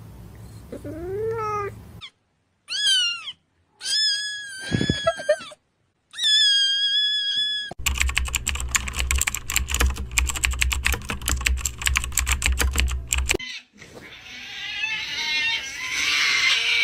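Several separate cat meows, then about six seconds of rapid computer-keyboard typing, then a long, loud cat wail near the end.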